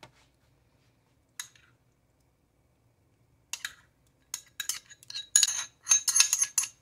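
A metal utensil clinking and scraping against a small glass bowl as a thick curry-paste mixture is scraped out of it. One clink about a second and a half in, then a quickening run of scrapes and clinks from about three and a half seconds in, densest near the end.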